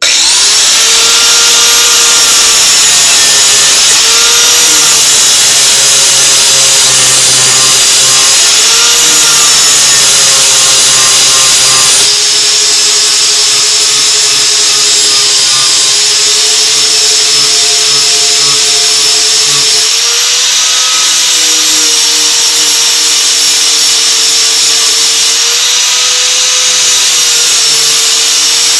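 Electric angle grinder running steadily, grinding the cutting edge of a steel mower blade clamped in a vise; its whine rises and falls a little as the disc is worked along the edge.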